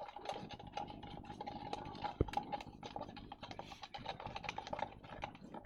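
A utensil stirring soap and salt in a container, with rapid small clicks and scrapes and one sharper knock about two seconds in.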